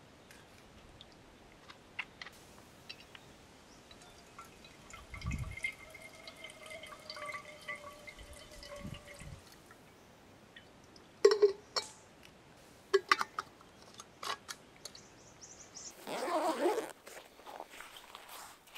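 Filtered water trickling and dripping from a hand-held water filter into a stainless steel mug. A few sharp clinks come partway through, and a brief rush of noise follows near the end.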